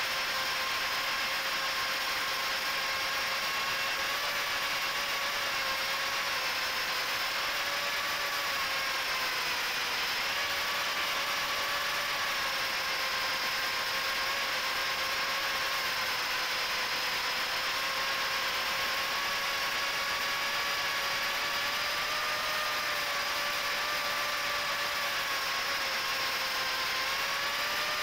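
A micro FPV quad's four HGLRC 1104 7500kv brushless motors spinning Gemfan 3018 props, heard from on board: a steady buzzing whine whose pitch drifts gently up and down with throttle.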